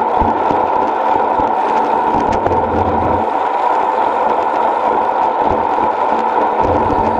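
Steady wind and tyre rush from a road bicycle rolling at speed on asphalt, picked up by a camera mounted on the bike. Low wind buffeting on the microphone comes and goes underneath.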